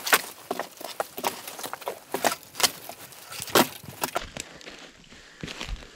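Footsteps through dry forest floor litter: boots cracking and snapping dead twigs and branches and crunching leaves in an irregular series of sharp snaps, quieter in the last couple of seconds.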